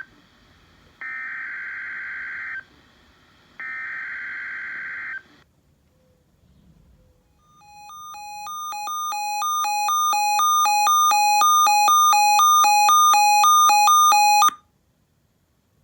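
Emergency Alert System SAME header data tones: two buzzy digital bursts, each about a second and a half long and about a second apart, announcing a new alert. After a short pause comes an electronic alert beeper sounding rapid pulsed beeps, about three a second, that grow louder for a few seconds and then cut off suddenly.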